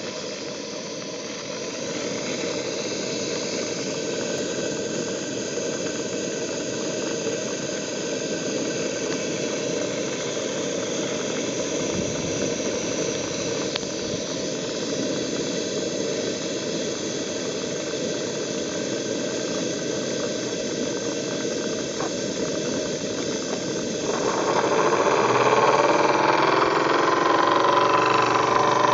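Model steam plant: a steady hiss from the Maccsteam boiler, then near the end the Stuart TVR1A twin-cylinder steam engine starts running and the sound grows louder, with a steady hum.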